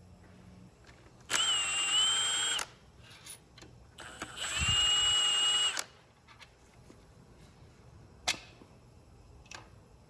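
A cordless power tool runs in two short bursts with a steady whine, running out bolts on the engine's connecting rods. A sharp metal click follows near the end.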